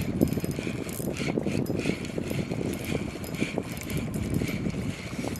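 Spinning fishing reel being cranked steadily, its gears making a rapid, continuous clicking as line is wound in under the load of a hooked fish.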